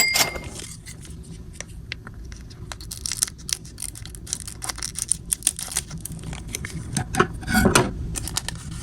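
Foil wrapper of a Pokémon TCG booster pack being handled and torn open, with sharp irregular crackles and crinkles. The crackling is denser and louder about seven seconds in.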